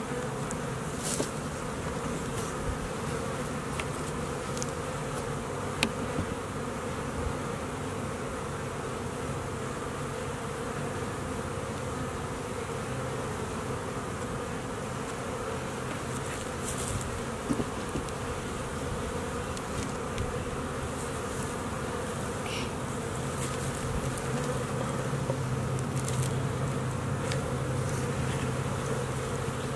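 Honey bees buzzing around an open hive in a steady low hum, many of them in the air after being shaken out of a nuc box. The hum grows a little louder near the end, with a few faint clicks.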